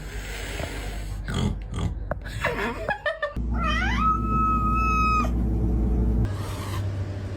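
A house cat making odd vocal calls: two short calls, then a long yowl that rises in pitch and holds steady for over a second, over a low hum.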